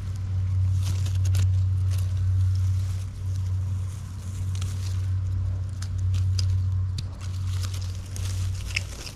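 Footsteps crunching and crackling through dry leaf litter and twigs on a forest floor, with a steady low hum underneath.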